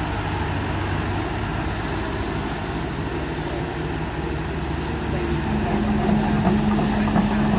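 Excavator's diesel engine running steadily. About five and a half seconds in it rises in level with a stronger steady hum.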